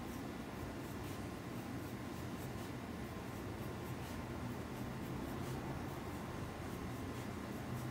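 Pencil drawing short strokes on paper: faint, irregular scratching, repeated many times, over a steady low hum.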